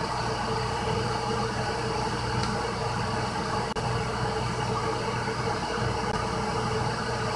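Glass electric kettle heating water: a steady rushing hiss with a low hum, the water not yet at the boil.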